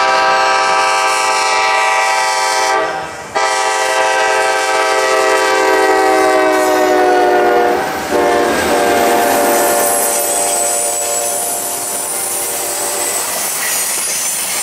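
Diesel locomotive horn on the Norfolk Southern F9PH-led Office Car Special, sounding a loud, long chord. It breaks off briefly about three seconds in and again around eight seconds, and its pitch sags a little as the train passes. After about ten seconds it gives way to the rolling noise of the train going by.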